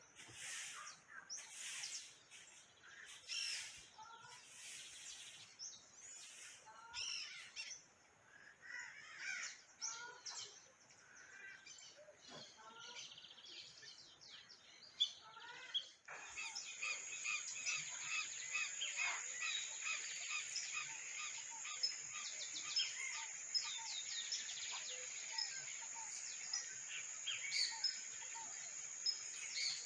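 Wild birds calling and chirping outdoors, in scattered calls at first; about halfway through the sound changes abruptly to a dense chorus of chirps over a steady high-pitched tone.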